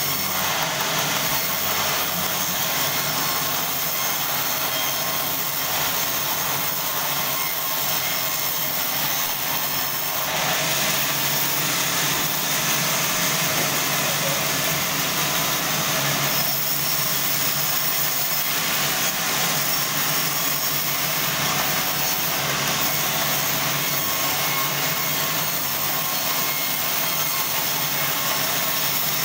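Sawmill band saw running and cutting through a large log: a steady, loud, hissing drone over a low machine hum, the texture shifting slightly about ten and sixteen seconds in.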